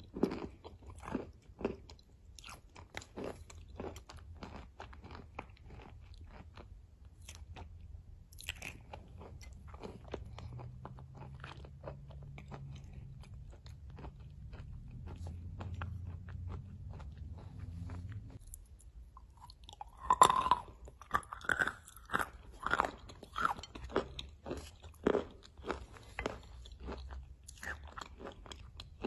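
Close-miked chewing and crunching of a thick clay-and-chalk paste: wet mouth clicks and gritty crunches, growing louder and denser about two-thirds of the way in. A low hum runs for several seconds in the middle.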